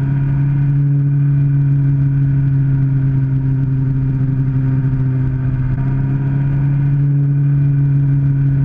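Suzuki GSX-R600's inline-four engine running at steady cruising revs, one even drone that holds its pitch throughout, with wind rumble on the microphone underneath.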